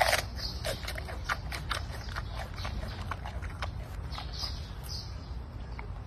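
Giant panda chewing up close: irregular crunching clicks over a steady low rumble, the loudest crunch right at the start.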